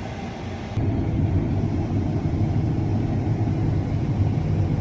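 Combine harvester running, a steady low rumble that steps up sharply in loudness about a second in and stays loud.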